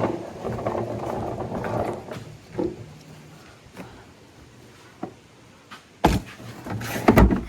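A cooler being loaded into a car: rustling and scraping for the first couple of seconds, a few small knocks, then two loud thumps near the end.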